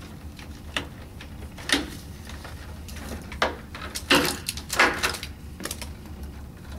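Power cords being pulled back across tables: a series of short scrapes and sharp knocks, about seven in all and most bunched in the second half, over a steady low hum.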